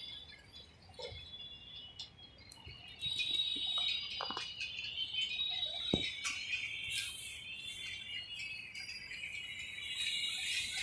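Small birds chirping in a dense, high-pitched chatter that grows louder about three seconds in, with a couple of light knocks.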